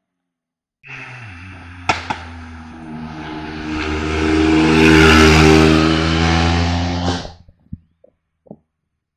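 A race car's engine passing on a hill-climb course: a steady engine note that swells to its loudest about five seconds in, then fades and cuts off suddenly. Two sharp clicks sound about two seconds in.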